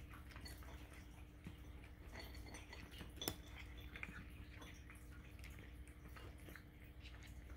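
A cat crunching dry kibble picked off a plastic feeding mat: faint, irregular crunches and clicks, with one sharper click about three seconds in.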